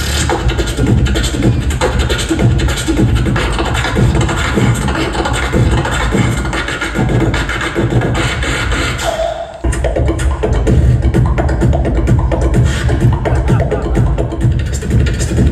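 Beatboxer's vocal percussion amplified through a theatre sound system: a fast, continuous run of deep kick sounds and sharp snare and hi-hat-like clicks, with a brief break about ten seconds in before it carries on.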